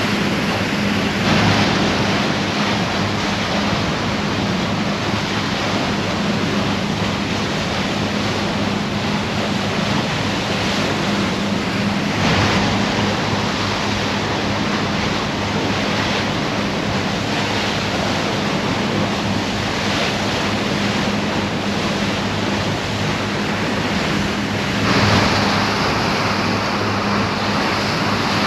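Steady rush of sea water and wind past the bow of the moving Garinko-go icebreaker ship, over a constant low drone from the ship's engine. The water sound swells briefly a few times, most strongly about 25 seconds in as a wave breaks over the bow and throws spray onto the deck.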